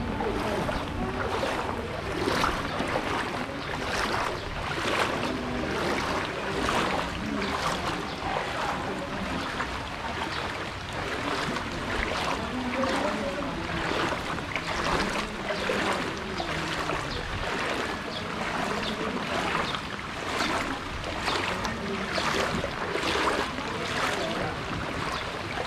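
Feet wading through floodwater, each stride a splash and slosh in a steady rhythm of a little more than one step a second.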